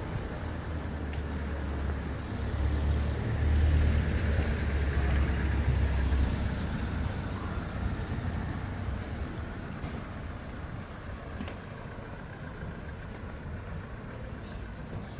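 A car passing close by, its engine rumble and tyre noise swelling to loudest about four seconds in, then fading as it drives on ahead.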